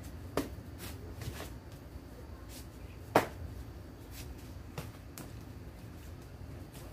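A few sharp slaps of kicks striking handheld taekwondo kick paddles, the loudest about three seconds in.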